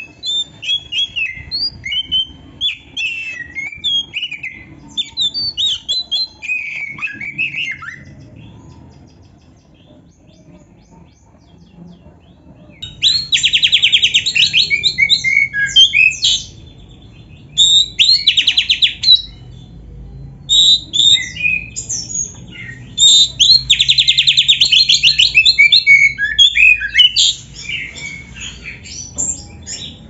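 Oriental magpie-robin singing, its song filled with mimicked canary phrases. Varied whistles and chirps for the first several seconds, a short lull, then loud, fast rattling trills in repeated bursts from about halfway.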